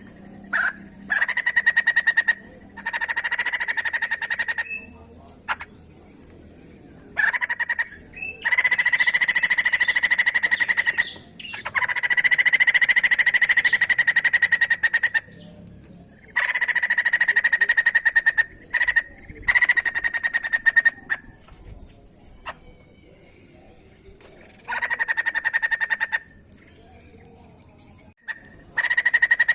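White-crested laughingthrush giving fast, rattling chatter calls at a steady pitch, in about ten bouts of up to three seconds with short pauses between them.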